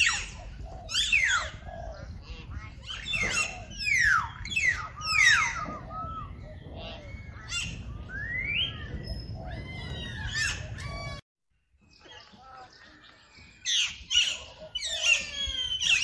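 Small birds chirping and calling: many quick, falling and rising whistled notes in overlapping runs over a low rumble. The sound cuts out suddenly a little past eleven seconds, and the chirping comes back a couple of seconds later.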